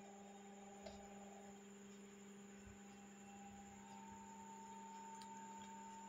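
Near silence: a steady low electrical hum, with a few faint clicks.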